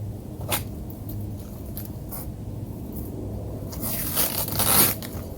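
Packing material being handled while a tool box is unpacked: a sharp click about half a second in, a few light taps, then a loud rustling scrape near the end.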